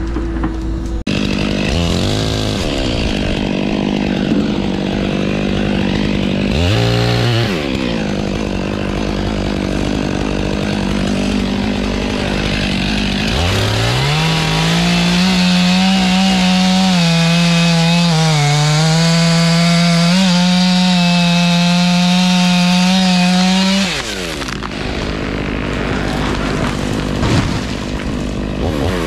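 Stihl chainsaw running at high revs with two brief dips in pitch. From about halfway it is held at full throttle cutting into a poplar trunk, its pitch wavering under load, then it drops off about two-thirds of the way through.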